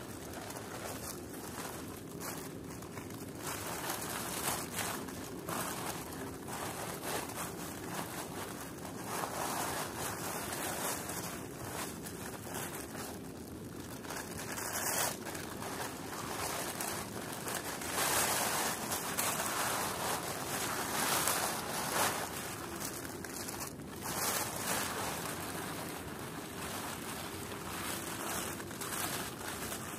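Large plastic sheet rustling and crinkling as it is unfolded and spread out by hand, in surging swells of rustle.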